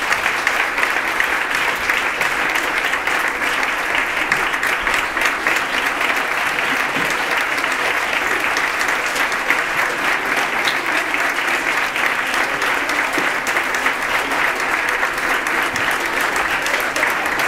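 Audience applauding, many hands clapping at a steady level throughout.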